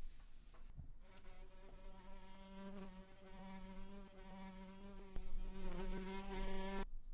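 Bluebottle fly buzzing in one steady drone that starts about a second in, wavers briefly in pitch near the end, and cuts off suddenly.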